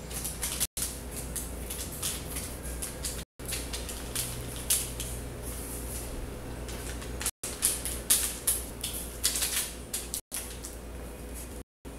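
Paper receipts and banknotes rustling and crackling as they are handled and pressed onto skin, over a steady low hum, with the loudest crinkling in the second half. The sound cuts out briefly several times.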